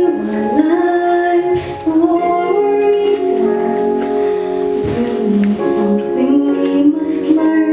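A female solo voice singing with instrumental accompaniment, holding long notes that step from one pitch to the next.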